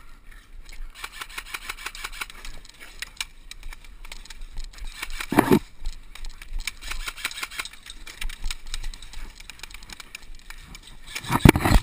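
Airsoft electric guns firing rapid full-auto bursts, a fast even rattle of shots, with two louder sudden noises about five seconds in and near the end.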